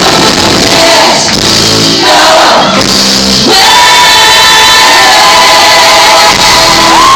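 Live rock-band music with singing and a loud, distorted crowd, recorded from the audience. About halfway through, the music gives way to one long held high sung note, which rises a little near the end as the crowd cheers.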